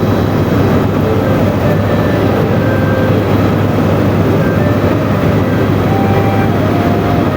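Helicopter cabin noise: the engine and rotors running with a steady, loud drone in cruising flight.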